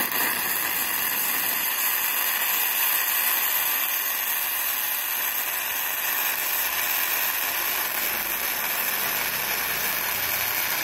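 Gasless MIG welding arc burning on aluminium plate, fed by a MultiPro MIG-MMA/TIG 160 inverter welder set at 70 A: a steady hiss that starts suddenly with the arc and cuts off as the arc is broken at the very end.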